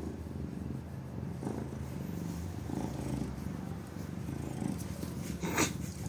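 Domestic cat purring steadily while being stroked. A brief sharp noise comes near the end.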